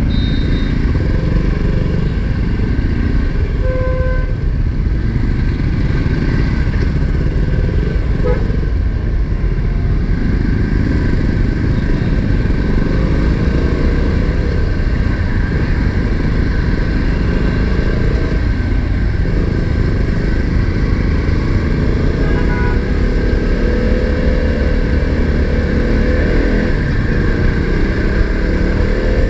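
KTM motorcycle running at low speed in stop-and-go traffic, heard from the rider's own bike with a dense, steady low rumble of engine and wind on the camera microphone.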